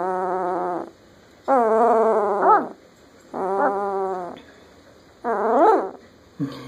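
Ten-day-old German Shepherd puppy whining in a series of four drawn-out calls, each about a second long with short pauses between; the last call sweeps up and back down in pitch.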